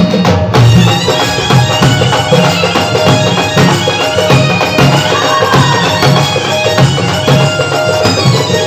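Instrumental interlude of a Hindi devotional bhajan: a held-note wind-like melody over a steady drum beat.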